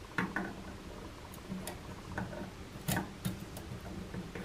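Long metal tweezers clicking and scraping against the inside of a single-lever mixer faucet's empty cartridge housing. A few irregular sharp clicks, the loudest about three seconds in.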